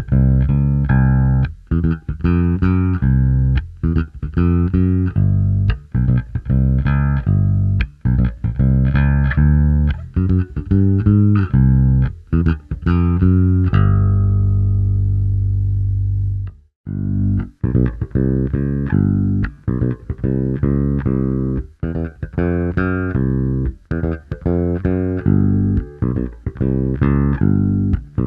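SQOE SPJ400 short-scale electric bass played fingerstyle with both pickups of its PJ set on, sounding a continuous run of plucked notes. About halfway through, one note is held for a couple of seconds and then cut off sharply before the line resumes.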